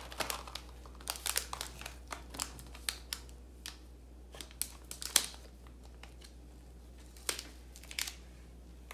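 Foil tea-bag sachets crinkling and rustling as gloved hands handle them, in scattered short crackles and sharp ticks. A faint steady low hum runs underneath.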